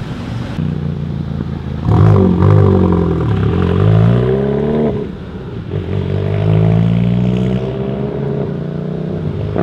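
Exhaust of a VW MK7 GTI's turbocharged 2.0-litre four-cylinder through a Corsa cat-back system, pulling away from a stop at normal throttle. The note climbs about two seconds in, falls back at a gear change, then settles into a steadier hum as the car drives away.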